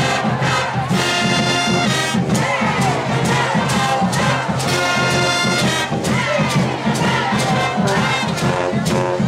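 High school marching band playing on the field: brass and sousaphones sounding sustained notes over a steady marching drum beat.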